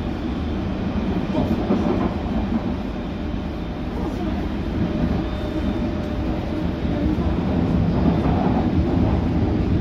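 London Underground S7 stock train running at speed, heard from inside the passenger car: the steady noise of wheels on rail and the running gear, growing a little louder near the end.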